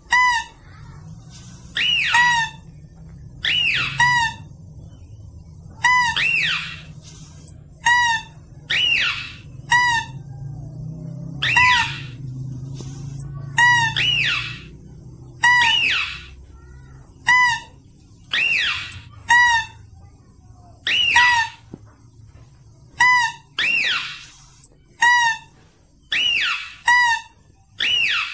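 Mouse-deer (kancil) lure call: short, sharp, high-pitched calls repeated in quick succession, mostly in pairs, a quick gliding cry followed by a clipped, whistle-like note.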